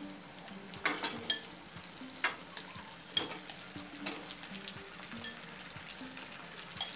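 Raw chicken pieces going into hot mustard oil and melted butter in a kadai, sizzling, with about ten irregular sharp taps and clatters as pieces land and are pushed about.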